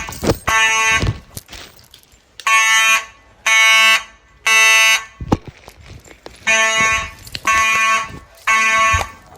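Fire alarm sounding in the temporal-three evacuation pattern: three long tones about a second apart, then a pause of about two seconds, repeating.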